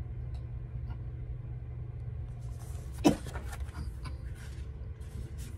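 Paper sheets being handled and turned, faint rustling with one short sharp crackle about three seconds in, over a steady low hum.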